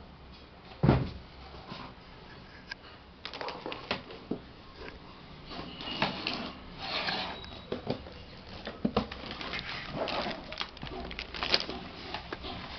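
Scattered clicks, taps and rustles of a laptop being taken apart by hand, with one sharper knock about a second in.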